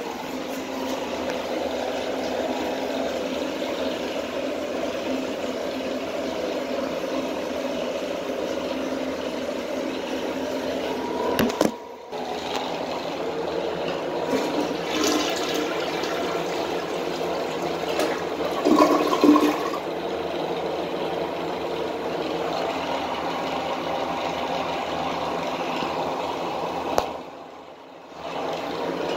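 2004 Mansfield Alto toilet refilling after a flush: a steady rush of water through the fill valve into the tank and bowl. It breaks off sharply twice, about twelve seconds in and just before the end.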